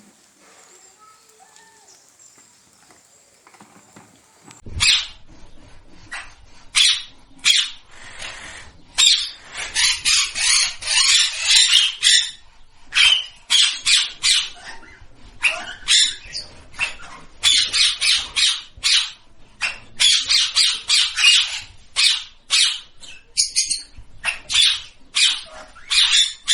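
Parrot squawking: harsh screeching calls in rapid, uneven runs, starting about five seconds in after a faint opening and going on to the end.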